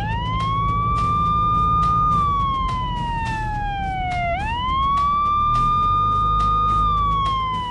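Police car siren wailing: the tone rises quickly to a high held note, slides slowly down, then rises again about four seconds in to start the next cycle.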